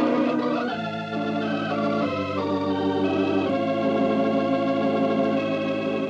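Organ music bridge in a 1940s radio drama: a slow run of held organ chords that changes chord about four times and fades toward the end. It is the musical cue that closes one scene and leads into the next.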